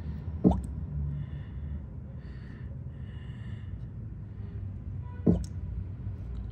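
Used engine oil dripping from a Honda CBR's drained engine into a full drain pan: two single plops, about half a second in and near the end, over a low steady hum.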